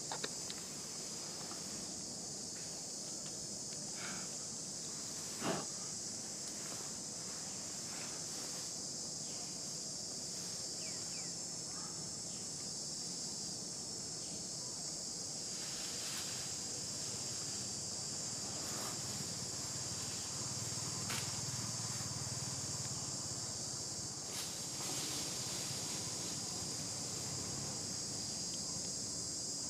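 Steady, high-pitched insect chorus, with a few faint clicks and one sharper click about five seconds in.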